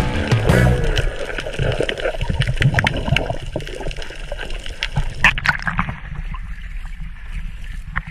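Water gurgling and splashing around a submerged camera, muffled, with many scattered clicks and knocks, a burst of louder splashing about five seconds in.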